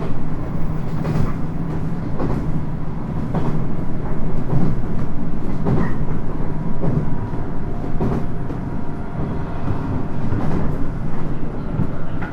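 Inside a 719 series electric train running at speed: the wheels click over rail joints about once a second over a steady rumble and hum from the running gear.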